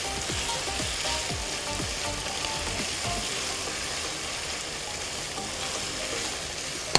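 Minced meat and tomato strips sizzling steadily in oil in a nonstick frying pan while a spatula stirs them.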